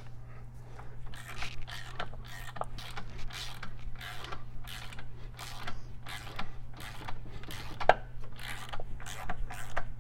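Hand ratchet clicking in a steady run of short strokes as it turns the threaded shaft of a bearing-installer tool, pressing an inner cam bearing into a Twin Cam cam plate.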